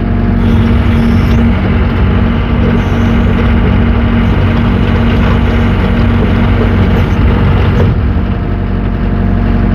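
Yanmar diesel engine of a 6.2-ton JoyT5 JT5600 mini excavator running steadily under load while the machine travels in reverse on its crawler tracks over gravel.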